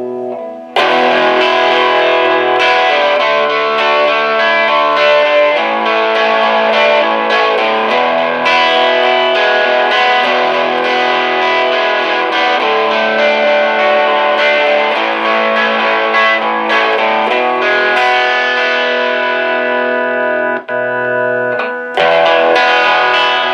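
1960 Silvertone 1423 Jupiter electric guitar with DeArmond pickups, played through a Boss Blues Driver overdrive pedal into an Orange amp, giving a crunchy overdriven tone. Playing starts about a second in and breaks off briefly near the end before resuming.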